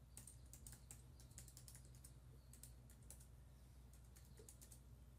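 Faint computer keyboard typing: a quick, irregular run of keystrokes, over a low steady hum.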